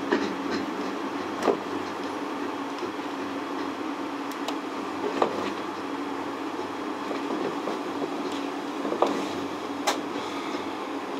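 Steady running noise heard inside a rope-driven suspended Skyrail car as it travels along its guideway: a constant hum, broken by a few sharp knocks at irregular intervals.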